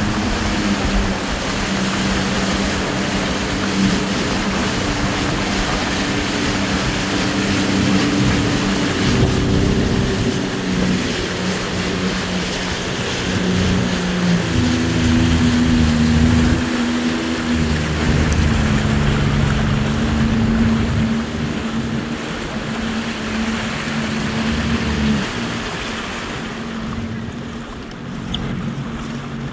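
Jet ski engines running with rushing water and wind noise, the engine note stepping up and down with the throttle. The sound drops quieter and duller near the end as the riding eases off.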